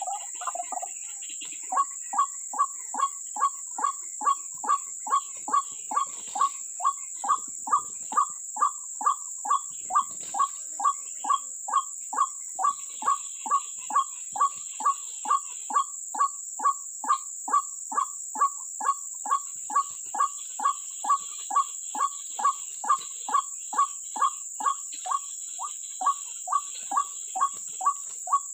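White-breasted waterhen calling: a short, clipped note repeated steadily about twice a second without a break. A steady high-pitched insect drone runs underneath.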